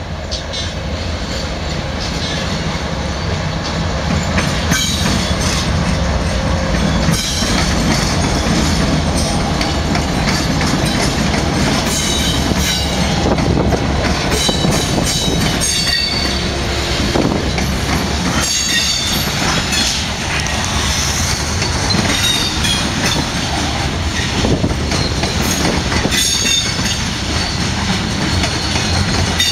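A slow Union Pacific freight train passing close by: its diesel locomotives rumble past, then a string of covered hopper cars rolls by with a steady run of wheel clicks over the rail joints.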